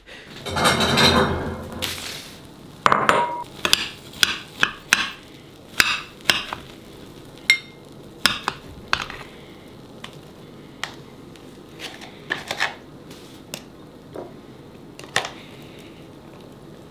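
A metal serving spoon scraping and clinking against a ceramic baking dish and a bowl as crumble is dished up: a run of separate sharp scrapes and clicks that thin out towards the end, after about a second of rustling near the start.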